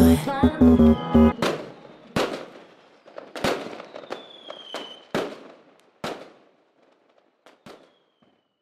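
The last notes of the song die away in the first second or so. Fireworks then go off as about eight sharp bangs with echoing tails, spaced irregularly a second or so apart and growing fainter. A falling whistle runs between some of them.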